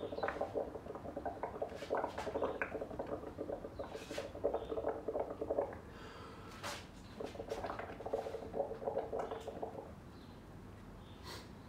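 Liquid bubbling and gurgling as breath is blown through a drinking straw into a glass of blue underglaze mixture, foaming up bubbles, with small pops and clicks. It comes in two bouts, a long one and then a shorter one after a brief pause, and is fainter near the end.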